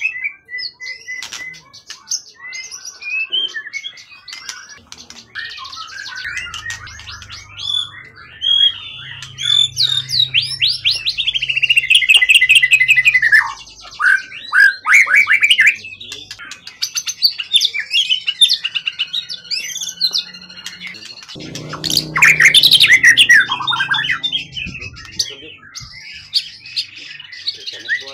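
A songbird singing a loud, varied song of whistles, fast trills and rattling phrases, with short pauses between bursts; the loudest bursts come about twelve and twenty-two seconds in. A low rumble sits beneath the song twice.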